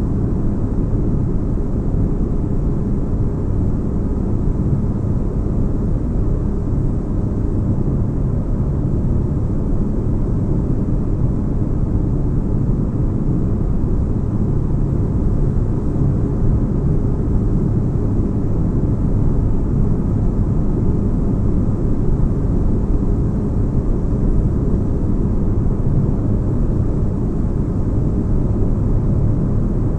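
Steady deep, bass-heavy rumbling drone of a sci-fi spaceship ambience, unchanging, with a faint hum layered over a low noise bed.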